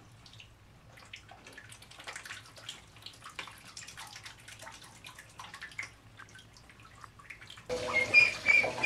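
Ducklings paddling in a bathtub: small splashes, drips and trickles of water. Near the end it gets suddenly louder, with short high calls from the ducklings.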